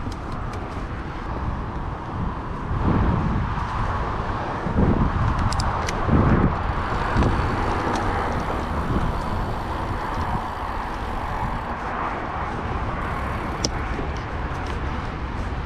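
Mountain bike ride noise: tyres rolling over the trail with wind buffeting the microphone, the rumble surging for a few seconds, and a few sharp clicks and rattles from the bike.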